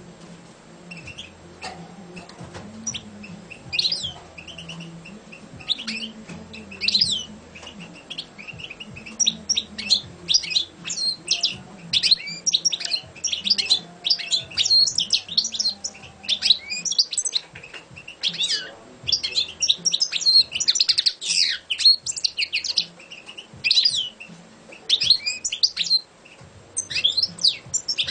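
European goldfinch singing: fast twittering, trilling phrases of quick high notes. It sings in scattered snatches at first and almost without pause from about nine seconds in, with a short break near the end.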